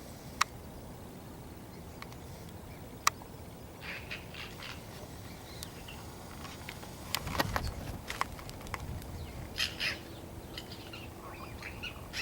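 Strange calls from an unidentified bird heard among crows. Two sharp, loud clicks come about half a second and three seconds in, followed by clusters of short, harsh, raspy notes.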